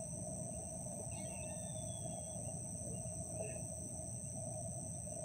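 Outdoor ambience of steady, unbroken insect trilling, with a few faint bird chirps about a second and three seconds in, over a low background rumble.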